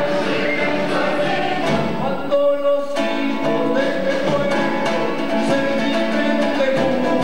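Music with several voices singing together, like a choir. A little over two seconds in, the lower parts drop out briefly and a single held note carries on.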